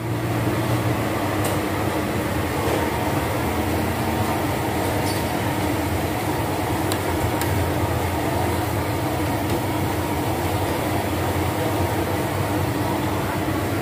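Steady roar of a gas burner under a large pan of green curry with fish balls, with a few faint ticks of the ladle as the curry is stirred.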